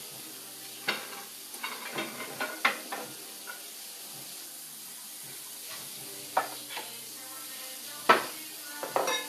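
Food sizzling in a pan with a steady hiss, broken by a few sharp clatters of dishes and utensils, the loudest one near the end.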